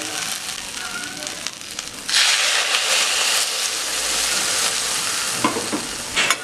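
Water spinach and potatoes frying in oil in a wok, sizzling gently. About two seconds in, water poured into the hot wok sets off a sudden, loud hiss of boiling and sizzling that carries on to the end.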